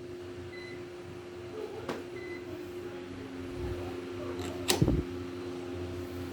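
Many ceiling fans running together at medium speed, a steady motor hum. A faint knock about two seconds in and a louder sharp knock near the end.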